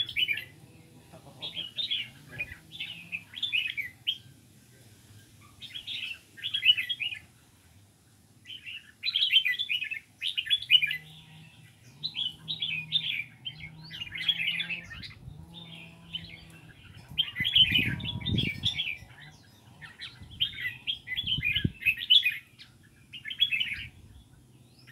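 Caged songbirds singing, short chattering phrases repeated every second or two. A brief low rumble comes about two-thirds of the way in.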